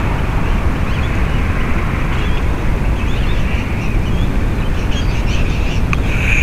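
Outdoor ambience in a park: a steady low rumble with birds chirping throughout, and one sharp click near the end as the grounded drone is handled.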